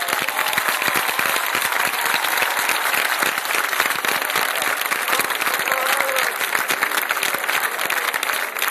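Large crowd applauding: dense, steady clapping from many hands.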